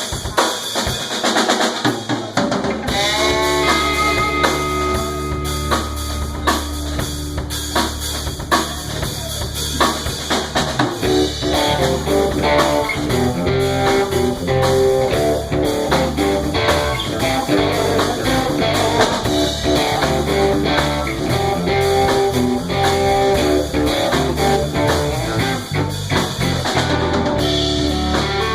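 A live rock band playing: a drum kit with kick and rimshots under a sustained bass and an electric guitar, the guitar playing busier lines from about ten seconds in.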